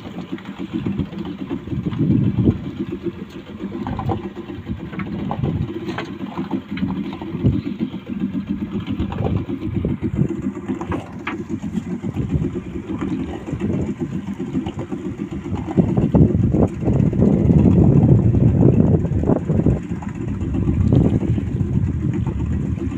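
Small fishing boat's engine running at idle, a steady low rumble, with a few brief knocks.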